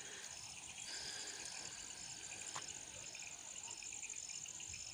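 Insects chirping in a field: a continuous high, pulsing trill with a shorter chirp repeating about every two-thirds of a second, faint throughout.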